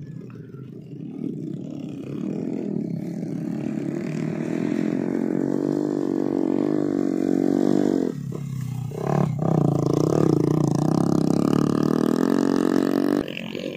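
Small motorcycle engines running under load as the bikes ride across a rice paddy carrying sacks of grain. The engine note wavers in pitch and grows louder as a bike approaches. The sound breaks off abruptly about eight seconds in, then comes back louder until it breaks off again near the end.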